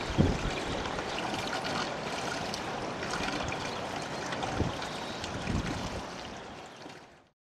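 Steady outdoor noise with a few low gusts of wind buffeting the microphone, fading out near the end.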